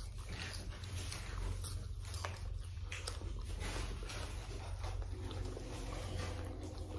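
A person chewing food close to the microphone, with a run of irregular small clicks and crunches over a steady low hum.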